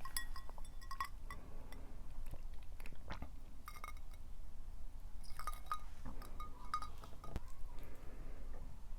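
Tableware clinking: light taps of utensils against dishes and glass, several leaving short ringing tones, in small clusters at the start and again past the middle.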